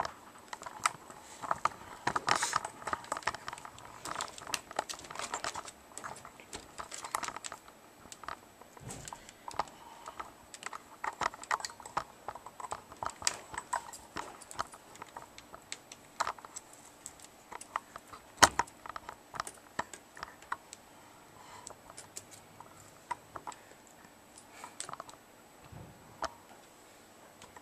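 Irregular small clicks, taps and light rattles of hands handling a laptop's LCD panel and its plastic frame during a screen replacement. One sharper knock comes about two-thirds of the way through.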